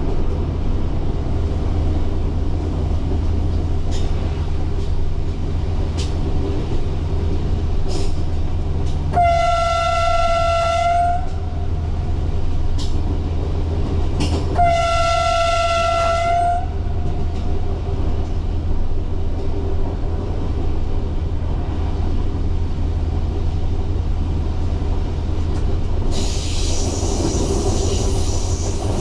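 Alstom Coradia Lint 54 diesel railcar running steadily, heard from the driver's cab, with its horn sounded twice, each a long blast of one pitch lasting about two seconds, about nine seconds in and again about four seconds later. Near the end a high wheel squeal sets in.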